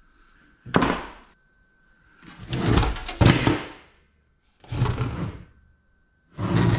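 Steel desktop computer case being handled and tipped over. It gives four bursts of metal thunks and clattering as loose pieces inside shift and fall.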